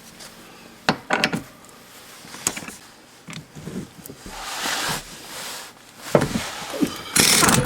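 Hand tools working on a pickup truck's seat bolts: scattered clanks and knocks, a scraping rasp about four seconds in and a louder one near the end.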